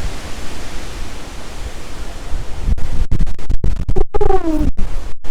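Hurricane-force wind rushing through trees and buffeting the microphone, a loud steady rush with heavy low rumble. About three seconds in the gusts grow stronger and the sound keeps cutting out in brief gaps, with a short falling tone near the end.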